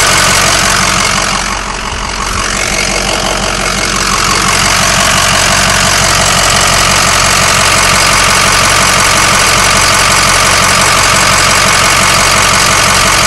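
Ford 6.0L Power Stroke V8 diesel idling loudly and steadily, heard close up at the open fill neck in the engine bay. The engine has positive crankcase pressure and excessive blow-by, which the owner suspects comes from the cylinder honing or the rings. It dips briefly about two seconds in.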